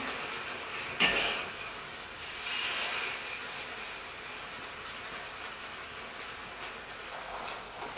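A ladle pouring thick garlic sauce over steamed pork belly in a bowl, heard as a soft hissing pour. There is a sharp knock about a second in.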